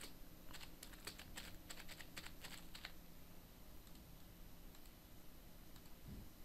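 Faint typing on a computer keyboard, a quick run of key clicks for about three seconds, then near silence.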